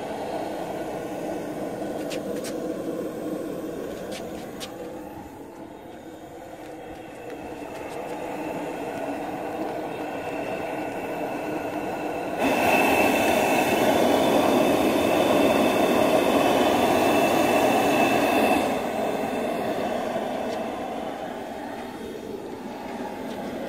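A propane wok burner running with a steady flame noise. About twelve seconds in, the burner is turned up: it gets suddenly louder and a high whistling tone comes in. About six seconds later it is turned back down to the lower, duller sound.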